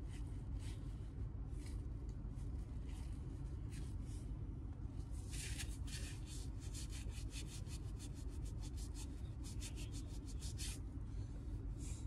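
Paper napkins rubbed hard against cloth trousers to wipe off a spill, in a long run of short scrubbing strokes that come quickest, about four a second, in the middle.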